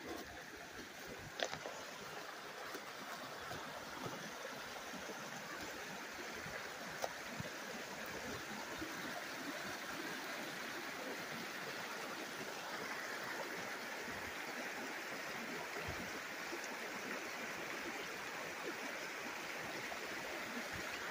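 Shallow mountain creek running over rocks, a steady rush of water that grows a little louder over the first several seconds and then holds. A few sharp clicks, the clearest about a second and a half in.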